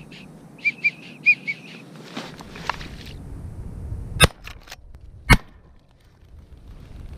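A run of short, high whistled wigeon calls, then two shots from a pump-action shotgun about a second apart, with the pump clicking as it is worked between them.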